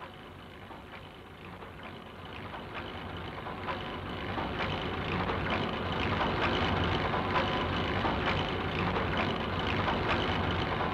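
Mechanical clattering and whirring with many small clicks and a faint steady whine, growing louder over the first few seconds and then holding steady.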